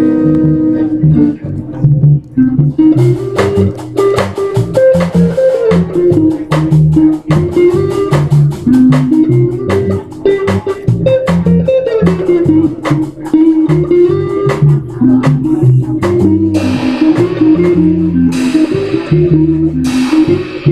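Live band playing a jazz tune, guitar and bass carrying a moving bass line, with sharp rhythmic hits coming in about three seconds in.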